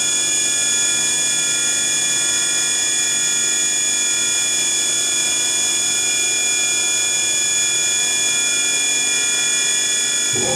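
SNK Prodigy GT-27 CNC gang tool lathe running a program in auto cycle, its spindle turning at about 3,200 rpm with a steady high whine.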